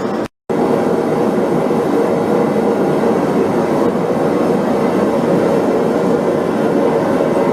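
Propane forge burner running with a steady roar, cut off by a brief silent gap near the start.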